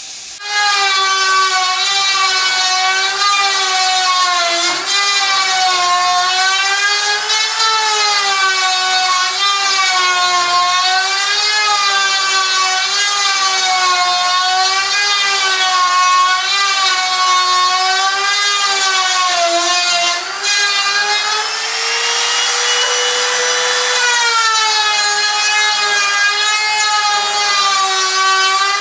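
Trimmer router with a straight cutter taking a first, half-depth pass (about 4 mm of an 8 mm rebate) through the chipboard side of a melamine-faced kitchen carcass: a high motor whine whose pitch wavers as the bit cuts. The pitch dips briefly about two-thirds of the way through, then rises a little and holds there to the end.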